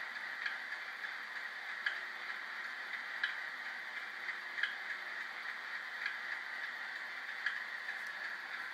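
Sound decoder in a Bachmann OO-gauge Class 37 model playing the diesel engine's idling sound through a small speaker: a steady hum with a light tick about every second and a half.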